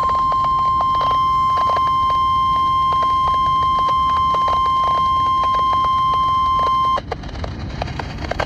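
Emergency Alert System attention signal of a single steady tone near 1 kHz, the warning alarm tone for a severe thunderstorm warning, played over radio hiss with scattered crackles. The tone cuts off sharply about seven seconds in, leaving only the hiss and crackle.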